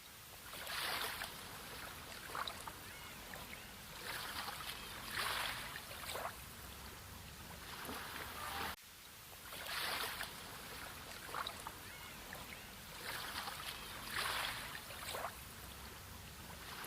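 Sea water washing and lapping in repeated swells of hiss. The same short stretch of about nine seconds repeats, with a brief dropout at the join about nine seconds in.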